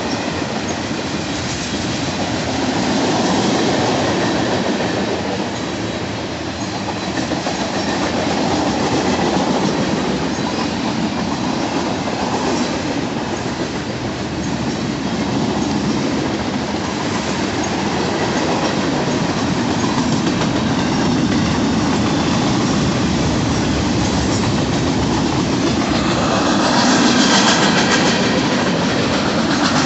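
Freight cars of a long mixed freight train (covered hoppers, a lumber-laden centerbeam flatcar, tank cars) rolling past close by: a steady, loud rumble and clatter of steel wheels on the rails. It gets louder and harsher near the end.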